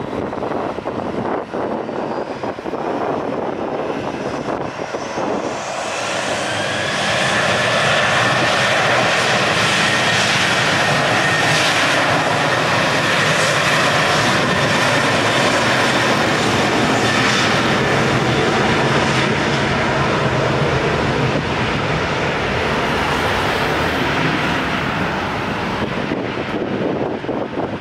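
Jet engines of a Boeing 737 airliner on the runway. The noise swells about six seconds in into a loud, steady roar with a whine, then eases off near the end.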